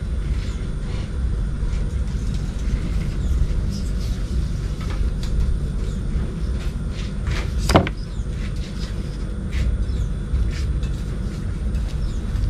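A steady low background rumble with scattered small clicks and rustles as a metal flashlight is handled, and one sharper click about eight seconds in.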